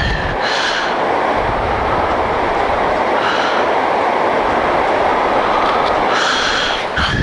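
Steady rushing roar of wind and road noise from a Yamaha MT-09 motorcycle on the move, with a higher engine whine that comes in briefly near the start and again near the end.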